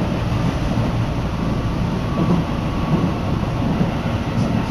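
Keihan Main Line electric commuter train running, heard from inside the carriage: a steady rumble of wheels on track, strongest in the lows.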